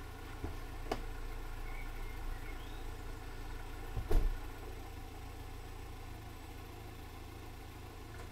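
VW Polo's engine idling with a steady low hum; a couple of sharp clicks in the first second and a heavy thump about four seconds in, the car door being opened and shut.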